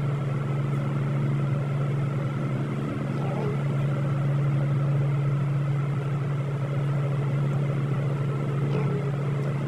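Busy city street traffic: cars driving past over a steady low hum.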